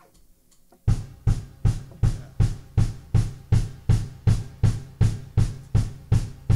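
Drum kit starting a steady beat about a second in, even hits about two and a half a second with bass drum and snare: the drum intro of a song, before the other instruments come in.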